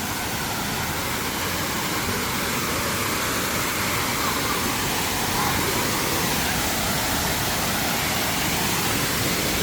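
Dhangar Waterfall's falling water, a steady, even rush with no change throughout.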